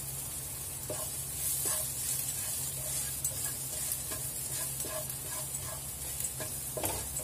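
Wooden spatula stirring and scraping chopped ginger, green chilli and ground spices sizzling in oil in a nonstick frying pan, with a steady frying hiss and irregular light knocks of the spatula against the pan.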